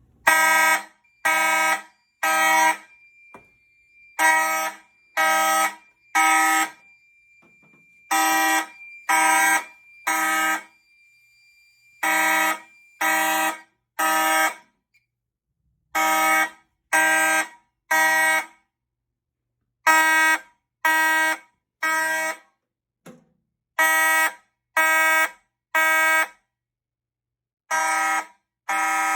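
Fire alarm horns, among them a Federal Signal 450D, sounding the temporal-3 evacuation pattern: three buzzy blasts about a second apart, then a pause, repeating about every four seconds, the panel's alarm signal from a smoke detector set off with test smoke. A faint steady high beep runs under the first several cycles and stops about halfway through.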